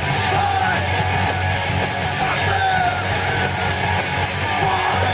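A live band playing loud, heavy rock with electric guitar and shouted vocals.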